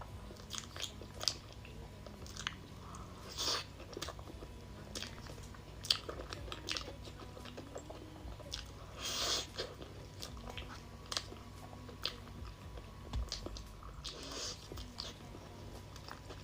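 Close-miked chewing and biting of a cheese-flavoured snack: many small sharp crunches, with a few longer, louder crunches about three and a half, nine and fourteen and a half seconds in.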